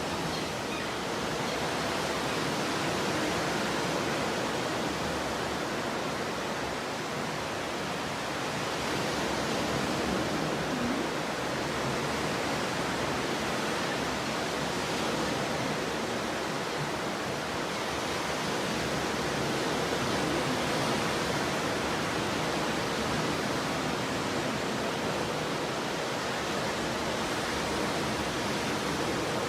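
Stormy ocean surf: a continuous rush of breaking waves that swells and eases slowly.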